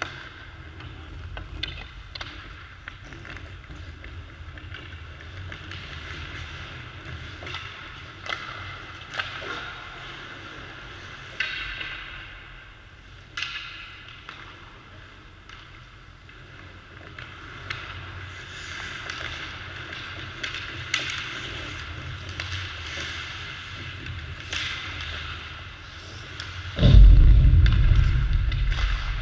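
Ice hockey practice on the rink: skates scraping on the ice and sticks and pucks clacking, many sharp knocks over a steady hiss. Near the end a loud, deep thud as the rink boards and glass are struck, dying away over a couple of seconds.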